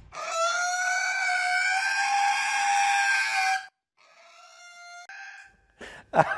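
A pig screaming while held on its back for a hoof trim: one long, loud, high-pitched squeal of about three and a half seconds, then after a short break a fainter, shorter one. The pig is protesting at being flipped and restrained.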